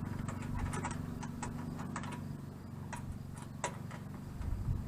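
12-volt diesel air heater running: its blower motor hums steadily, with a scatter of sharp ticks over the hum.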